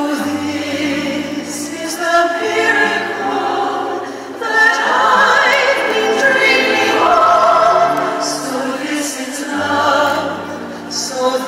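Orchestral show music with a choir singing long, sustained notes over a steady bass, with bright shimmering accents at a few points.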